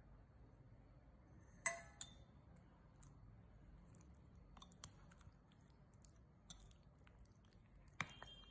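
Metal spoon clinking against a glass bowl while stirring thick mango pickle: a sharp ringing clink about two seconds in, a few soft taps after it, and one more ringing clink near the end.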